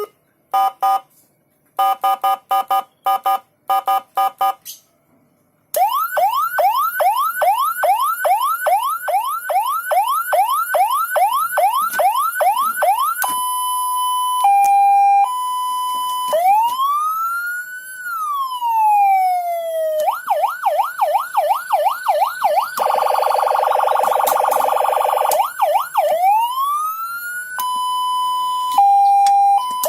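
Senken CJB100BD electronic siren module cycling through its tones: a run of short beeps, then a fast yelp, a two-note hi-lo, a slow rising and falling wail, the yelp again, a buzzy horn blast, and the wail and hi-lo once more.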